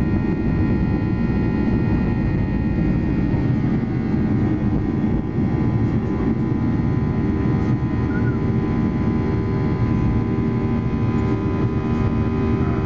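Boeing 737-800's CFM56-7B turbofan engines at takeoff thrust, heard inside the cabin over the wing as the jet rolls, lifts off and climbs: a steady deep rumble with a set of steady high fan tones above it.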